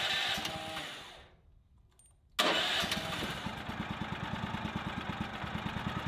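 Sawmill's small gasoline engine being started: a first go fades out about a second in, then the engine fires again about two and a half seconds in and settles into steady running with an even pulse.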